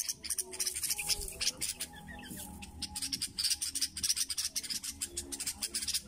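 A parent bird calling rapidly and repeatedly near its nest, a dense run of short, high chips, in protest at someone close to the nest.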